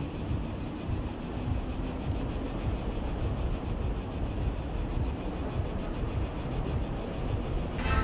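A chorus of cicadas buzzing steadily with a fast, even pulsing, over a low rumble of wind or distant traffic.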